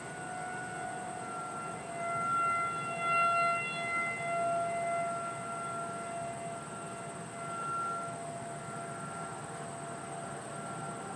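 Federal Signal 2001 outdoor warning siren sounding a steady single tone in a monthly test. The tone swells and fades as the siren rotates and is loudest a few seconds in.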